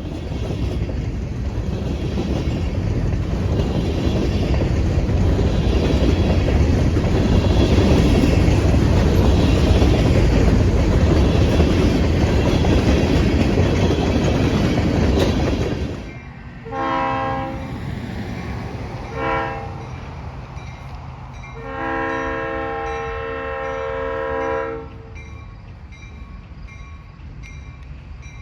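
ALCO diesel locomotive running loud and close, a heavy rumble that drops off suddenly about halfway through. It then sounds its air horn: two short blasts and one long blast of about three seconds.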